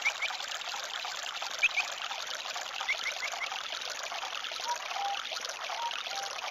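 Running water, a stream trickling steadily, with short high chirps in quick runs of two to four and a few lower whistled notes later on. It begins to fade out at the very end.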